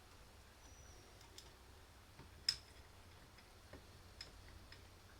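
Faint scattered clicks and taps of small hand tools and metal parts on a 1982 Honda CB450 motorcycle carburetor as its float bowl is being taken off, with one sharper click about two and a half seconds in.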